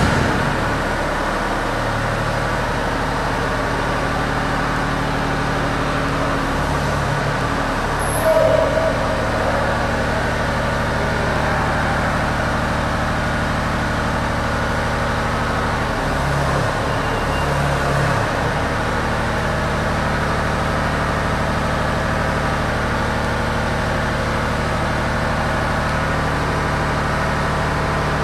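Aerial boom lift's engine running steadily, its note shifting briefly twice as the lift works.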